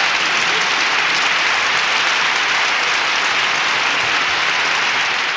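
Audience applause, a steady even clapping from many hands.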